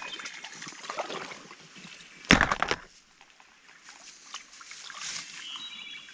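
Trout being rinsed by hand in river water: light sloshing and splashing, with one loud splash a little over two seconds in.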